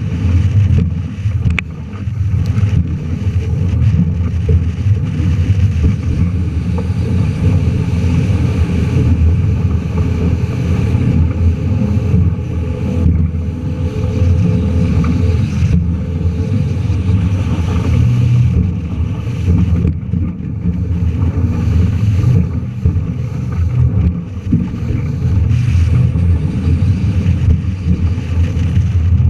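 Wind buffeting the microphone over the engine of a small patrol boat running at speed through choppy water, with water rushing along the hull. The loud rumble rises and falls unevenly throughout.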